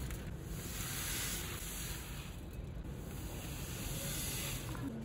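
Granulated sugar pouring from a stainless steel scoop into a plastic tub: a steady hiss of grains streaming and landing.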